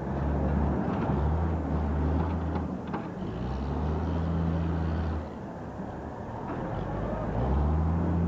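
Heavy diesel machinery at a demolition site running in stretches, a low drone that comes and goes and rises again near the end, over a murmur of crowd voices.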